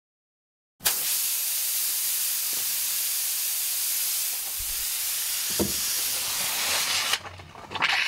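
Compressed air hissing steadily out of a tire through a large spike puncture, with MultiSeal sealant being sprayed out with it. It starts suddenly about a second in and stops shortly before the end.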